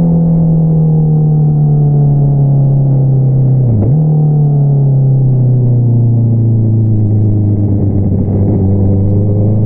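Honda CBR650R inline-four engine through an Akrapovič single-outlet exhaust, revs falling as the bike slows. About four seconds in the pitch briefly drops and jumps back up, like a downshift. The revs settle low, then begin to rise again near the end.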